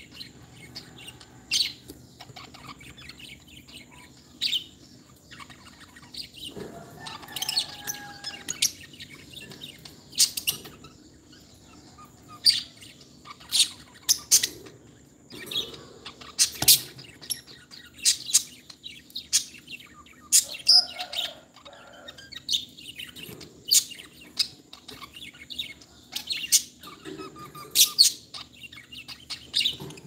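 Caged lovebirds chirping: sharp, short high-pitched calls at irregular intervals throughout, some in quick pairs.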